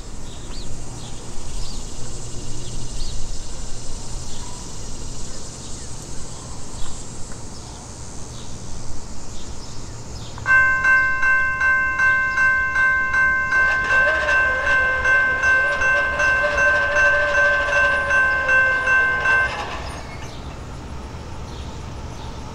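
Railroad grade-crossing warning bell ringing in an even pulse, about two strokes a second. It starts a little under halfway through as the crossing activates for an approaching train, and stops shortly before the end.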